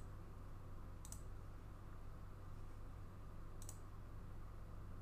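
Two short, sharp computer mouse clicks, one about a second in and one near the end, over a steady low electrical hum.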